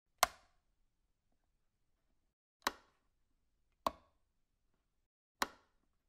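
Rocker switches on a wall switchboard being flipped: four sharp clicks at uneven intervals, each dying away quickly, with silence between.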